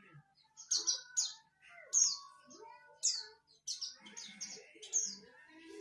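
White-eye (pleci) calling: about nine short, high chirps, each sliding down in pitch, given at uneven intervals of half a second to a second.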